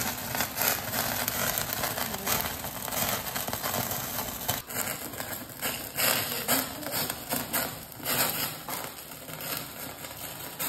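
Pork on a metal skewer roasting directly in a gas stove burner's flame: fat crackling and spitting with many small rapid pops over a steady hiss.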